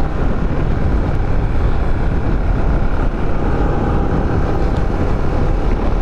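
Steady riding noise of a motorcycle at speed: wind rushing over the microphone, mixed with engine and tyre noise.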